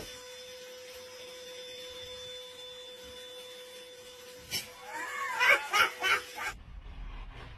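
Cordless handheld vacuum cleaner running with a steady hum. About four and a half seconds in, louder bursts of laughter come over it, and then the hum cuts off suddenly.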